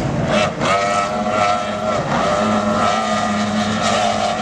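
Racing powerboat's twin outboard engines running at high speed: a steady engine drone with a couple of brief dips in pitch.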